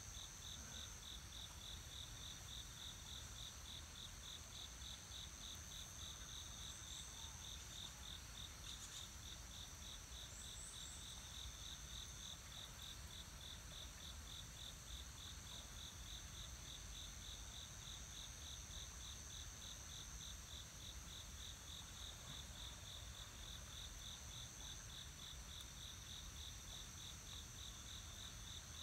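Crickets singing: a high chirp pulsing evenly, several times a second, over a steady, higher continuous trill.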